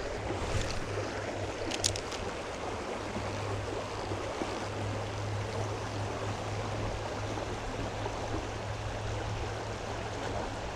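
Shallow creek rapids rushing steadily, with a couple of brief clicks about two seconds in.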